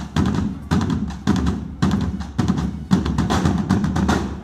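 A corps of medieval-style side drums playing together in a marching rhythm, with a strong accented beat nearly twice a second and quicker strokes in between.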